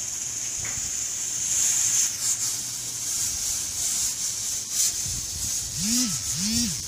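Pressure cooker on a gas burner hissing steadily as steam seeps past its weight valve, pressure building toward its next whistle. Near the end come two short rising-and-falling tones.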